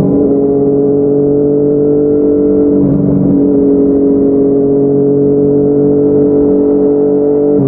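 Yamaha MT-09's inline-three engine through a Yoshimura R55 slip-on exhaust, running at steady revs while riding, with a brief change in the note about three seconds in.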